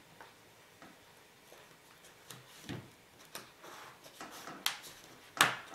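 Plastic back cover of a Samsung Galaxy Note 3 being fitted back onto the phone: scattered faint clicks and taps, with two sharper clicks near the end.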